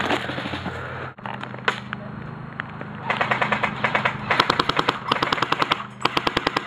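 Airsoft guns firing: a couple of single shots, then from about three seconds in three long full-auto bursts of rapid, evenly spaced BB shots.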